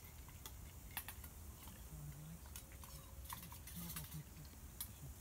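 Faint, distant conversation in low voices, with scattered light clicks and ticks.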